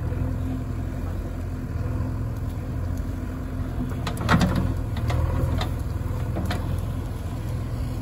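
JCB 3DX backhoe loader's diesel engine running steadily as the backhoe arm and bucket work. About four seconds in comes a cluster of sharp knocks, the loudest moment, followed by a few lighter ones.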